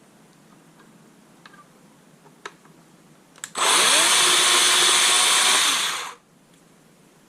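Handheld electric power tool spinning up, running for about two and a half seconds while taking copper off a heavy winch cable terminal, then spinning down. A few faint clicks come before it.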